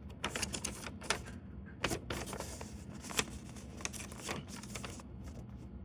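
Paper being unfolded and handled by hand: rustling with many sharp crackling clicks, irregular throughout.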